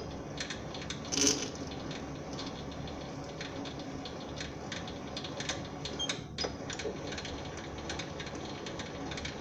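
SIEG SC4 bench lathe running under power during a thread-cutting pass in POM plastic: a steady motor and gear hum with regular light clicks about twice a second, and a louder clatter about a second in.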